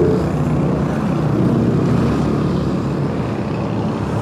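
Steady roadside traffic noise: engines and tyres of passing vehicles, a bit noisy.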